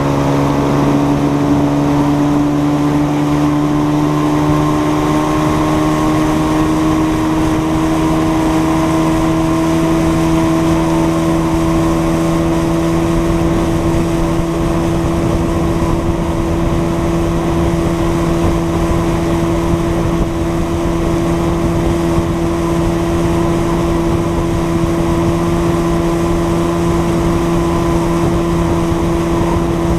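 Center-console boat running across the water at speed: its engine drones steadily, rising a little in pitch over the first several seconds and then holding, over the rush of wind and water.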